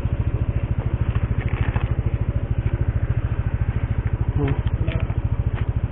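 Motorcycle engine idling steadily with an even, rapid pulse, with some rustling of the delivery bag and food packaging over it about four and a half seconds in.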